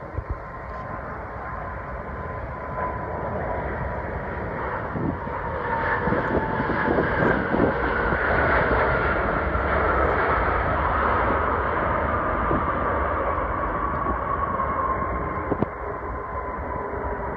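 Airbus A340-600's four Rolls-Royce Trent 500 turbofans on landing approach, a steady jet noise with a whine. It grows louder to a peak about halfway through and then eases off, while the engine tones slide down in pitch as the airliner passes.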